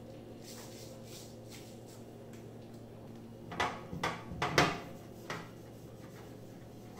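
Knocks and clatters of a pull-out kitchen cabinet drawer and the steel container inside it as small children handle them, a quick cluster of sharp knocks about halfway through and one more knock soon after, with faint clicks before.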